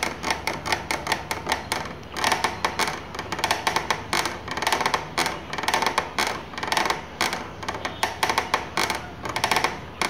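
Ola S1 Pro electric scooter's throttle grip being twisted back in the reverse direction, its mechanism giving off rapid clicking and rattling in repeated bursts. It is a noise the owner takes for a defect that the service centre has not fixed.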